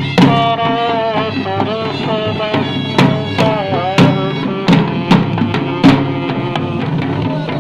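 Procession drummers beating double-headed hand drums in a brisk traditional rhythm, with a wavering pitched melody above them.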